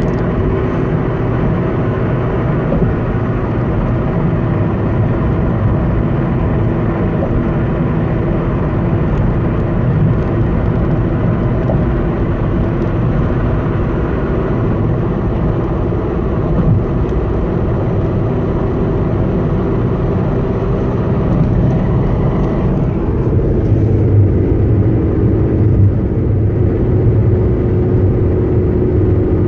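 A 2011 Honda Civic running, with a steady hum over engine and road noise: the unexplained humming the owner is asking mechanics about. About two-thirds of the way through, the hiss in the upper range drops away while the low hum carries on.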